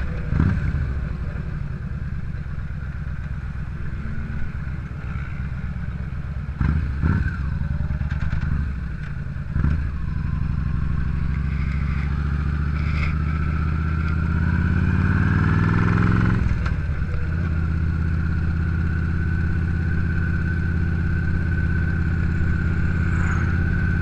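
Yamaha V-Star 950's V-twin engine running on the road, heard muffled through a GoPro's sealed waterproof housing. The engine pitch climbs steadily as the bike accelerates, then drops suddenly about seventeen seconds in at a gear change.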